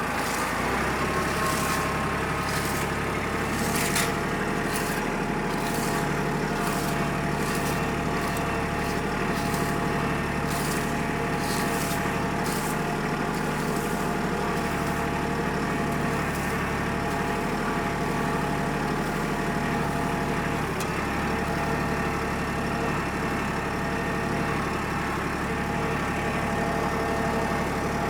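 Farm vehicle engine running steadily while hauling a load of raked hickory nuts, with repeated rattles and clicks through the first half.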